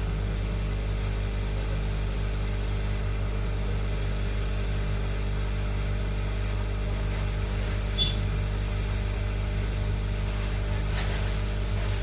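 Hot air rework station blowing steadily while an IC is desoldered from a phone's circuit board: an even hum, with one small click about eight seconds in.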